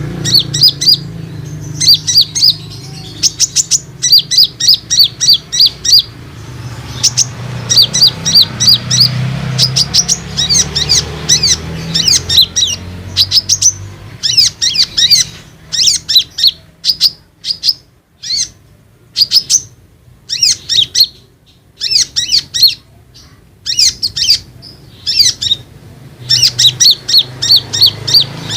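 Brown-throated sunbird (konin) singing a lure song: quick runs of sharp, high chirps, several a second, in phrases broken by short pauses.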